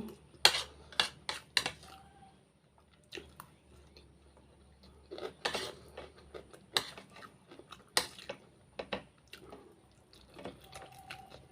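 Close-miked eating of fried rice and noodles: a spoon or fork taps and scrapes against a plate in short, sharp clicks, with soft chewing between.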